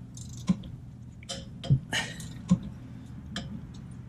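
A few sharp metallic clicks, spaced about a second apart, from a long 19 mm wrench on the rear brake caliper bracket bolts as they are tightened.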